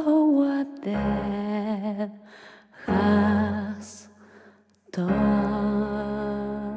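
A slow memorial song: a single voice sings a sad melody with vibrato in phrases of about a second, with short gaps between them, over held low accompanying notes.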